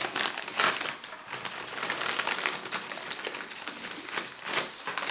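Crisp packet crinkling and rustling as it is handled, with quick sharp crackles throughout that stop suddenly at the end.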